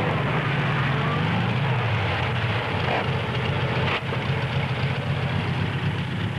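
A motor vehicle's engine running steadily, a low hum under a noisy outdoor rush, with a brief break about four seconds in.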